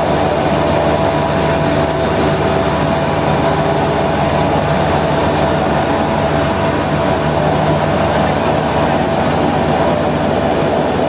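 BAe Jetstream 31's Garrett TPE331 turboprop engines running at taxi power, heard inside the cabin: a loud, steady hum with constant propeller and engine tones over a wide rushing noise.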